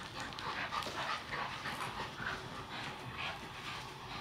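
A Staffordshire bull terrier puppy and an older Staffy playing tug-of-war, making a quick run of short, high play noises, about two or three a second.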